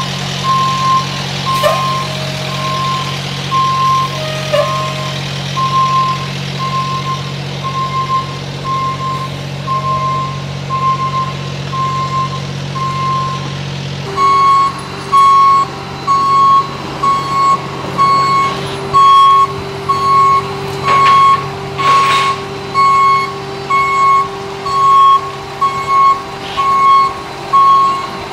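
A truck's backup alarm beeping about once a second while the truck reverses, over a diesel engine idling. About halfway through the beeps become louder.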